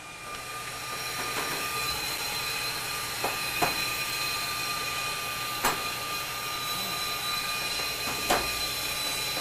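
Steady hiss of an acetylene torch flame burning, with a faint thin whistle in it, broken by four sharp metallic clicks.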